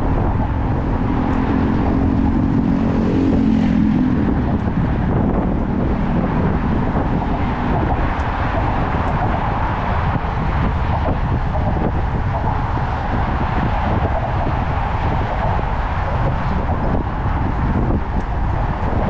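Steady rush of road traffic from cars on the roadway beside the bridge's bike path, with air rushing over the microphone of the moving bike. For the first few seconds a low droning tone stands out, from a passing vehicle.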